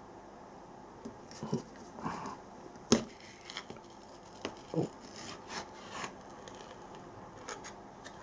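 Peel-off foil lid being pulled open on a mackerel tin: a sharp click about three seconds in, with crinkling and tearing as the foil peels back.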